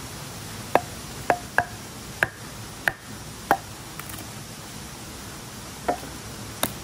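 A blade chopping into a stick to split wood for a bow-drill fireboard and spindle: about eight sharp, irregular knocks, each with a brief ring, with a pause of about two seconds in the middle.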